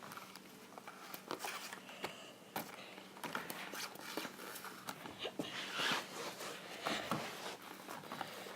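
Foil wrapper of a Kinder Surprise chocolate egg being unwrapped by hand: irregular crinkling and small crackles, with a few sharper rustles near the middle and toward the end.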